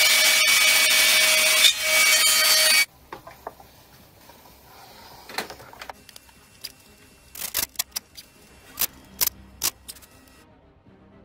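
A handheld electric router runs at full speed with a steady whine, routing the edge of a round wooden panel, and stops abruptly about three seconds in. Then come scattered sharp clicks and knocks as clamps and tools are handled.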